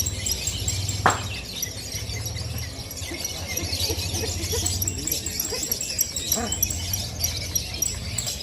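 Many caged songbirds singing at once in a dense, overlapping chorus of high chirps, with one sharp knock about a second in.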